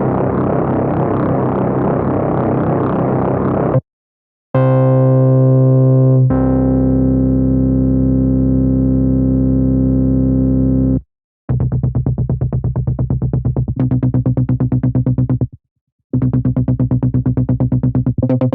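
Software synthesizer sounds from Arturia's V Collection played one after another: a buzzy, noisy held sound, then after a short break a long sustained pitched tone whose timbre changes a couple of seconds in, then two runs of rapid pulsing repeated notes with a brief gap between them.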